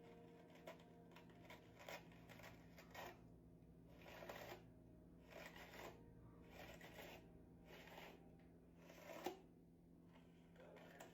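A hairbrush drawn through singed, heat-damaged hair: about eight faint brushing strokes, roughly one every second and a quarter.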